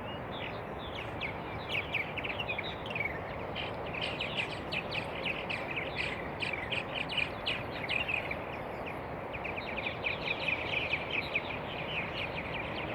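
Many small birds chirping, a dense stream of short high chirps overlapping throughout, over a steady outdoor background hiss.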